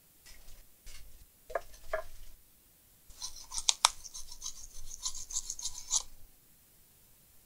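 A few light taps and knocks, then from about three seconds in, about three seconds of quick, scratchy scrubbing strokes as a small brush cleans the laptop LCD panel's connector.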